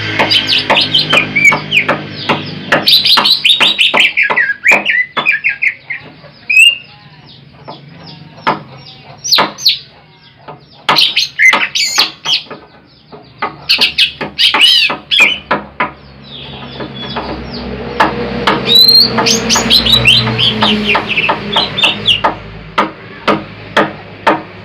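Greater green leafbird (cucak ijo) singing: quick runs of sharp chirps and sweeping whistled notes, thinning out in the middle, then a fresh dense run in the second half.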